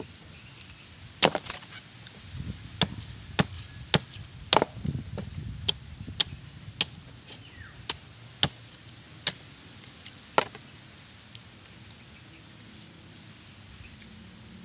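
Machete blade chopping into the husk of a young green coconut: about a dozen sharp chops, one every half second to a second, which stop about two-thirds of the way through.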